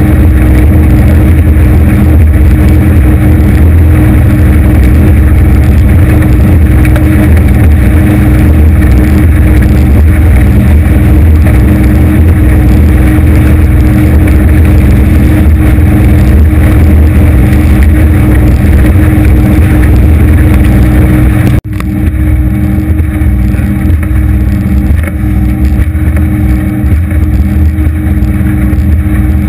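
250 hp Evinrude outboard on an aluminium Anytec 750 SPD boat running at cruising speed: a loud, steady engine drone mixed with the rush of water and wind. About two-thirds of the way through the sound breaks off for an instant and comes back a little quieter and more uneven.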